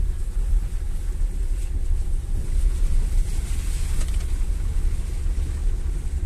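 Steady low rumble of road and engine noise inside a moving car's cabin, with some wind noise and a brief swell of hiss near the middle.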